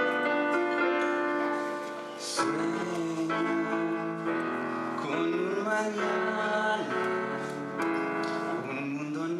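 A man singing into a microphone, accompanied by piano-voiced chords on a Casio electronic keyboard; held keyboard chords open, and the voice comes in about two seconds in.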